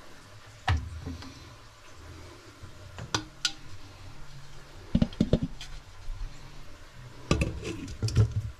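Sharp knocks and clinks of a ladle against a metal cooking pot, then a glass pot lid clattering as it is set onto the pot near the end.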